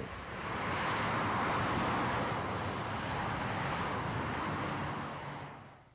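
Steady rush of dense freeway traffic, many cars and trucks passing at speed and blending into one even noise. It fades out near the end.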